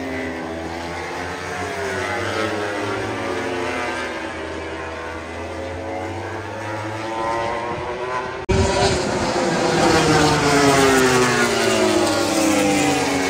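MotoGP racing motorcycles passing one after another at speed, their engine pitch sweeping up and down with each pass. About two-thirds of the way through, the sound cuts abruptly to a louder, closer pass of several bikes.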